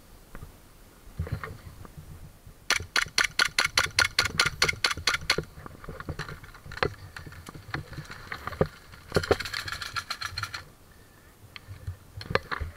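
Airsoft gun firing in two rapid strings of shots. The first lasts about two and a half seconds, the second about a second and a half some four seconds later, with a few single shots and rustling through brush in between.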